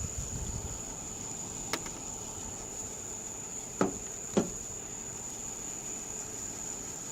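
A steady high-pitched insect drone, like crickets, with three short knocks: one about two seconds in and two close together near the middle.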